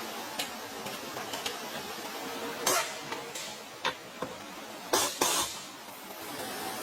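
Scattered sharp clicks and knocks of metal tools and parts being handled during workshop repair work, about eight in all at uneven intervals, the loudest a little past halfway, over a steady background hiss.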